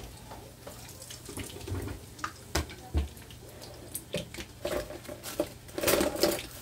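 Hot oil sizzling and popping around egg-battered stuffed chayote fritters in a frying pan, with scattered sharp crackles and a denser burst of crackling near the end.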